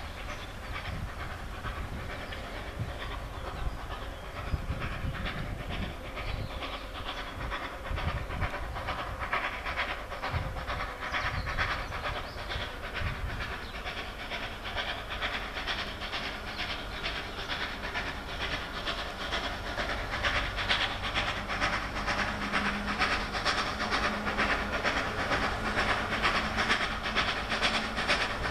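Ol49 class steam locomotive working hard as it pulls a train away from a stop: a rapid, even beat of exhaust chuffs over rumbling wheels. The beats grow louder as it draws closer.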